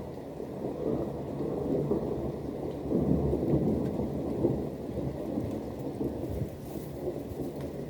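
A long roll of thunder over falling rain: a deep rumble that builds, peaks a few seconds in, then slowly dies away.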